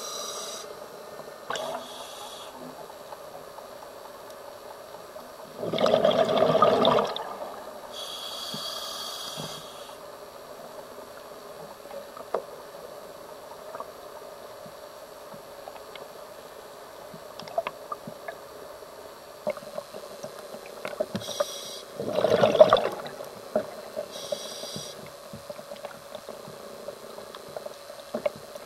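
Scuba diver breathing through a regulator underwater: a short hiss on several inhales, and the rush of exhaled bubbles twice, about six seconds in and again about 22 seconds in. Underneath is a steady low hum with scattered faint clicks.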